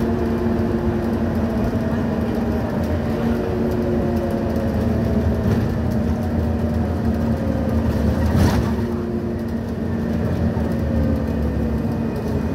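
Interior of a Scania N230UB OmniCity bus under way: the diesel engine and drivetrain drone steadily, with a faint whine that slowly falls in pitch through the middle. There is a single sharp knock about eight and a half seconds in.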